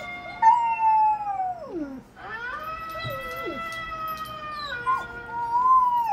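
Golden retriever howling: three long, drawn-out howls, each sliding down in pitch at the end. A second, lower howling voice overlaps in places.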